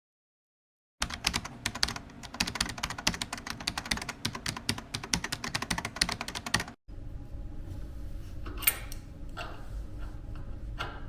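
Rapid, irregular clicking like typing on a keyboard, starting about a second in and cutting off abruptly near seven seconds. After it comes a low steady background with a few light knocks.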